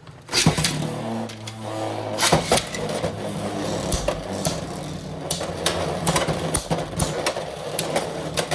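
Two Beyblade X spinning tops launched into a plastic stadium, then spinning with a steady whirring hum and clacking against each other and the stadium walls again and again.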